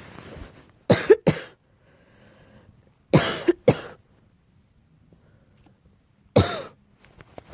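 Barking allergic cough: two quick coughs, then two more about two seconds later, then a single cough near the end.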